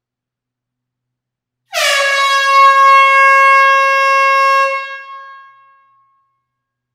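Air horn sounding one long, loud blast: a single steady note with many overtones, starting about two seconds in, held for about three seconds and then fading away over a second or so.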